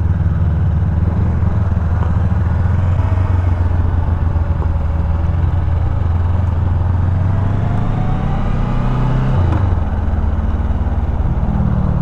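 Parallel-twin sport motorcycle engine running steadily on the move, mixed with wind noise. About nine and a half seconds in the engine note shifts abruptly, as at a gear change.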